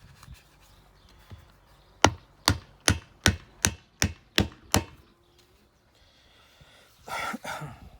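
Eight sharp hammer blows in a steady rhythm, about two and a half a second, driving a rebar axle through the plucker drum's disc. A short scraping rustle follows near the end.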